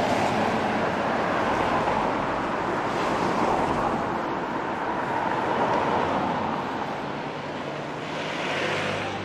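Road traffic on wet asphalt: cars passing with a steady tyre hiss that swells and fades, and a motor scooter's engine coming in near the end.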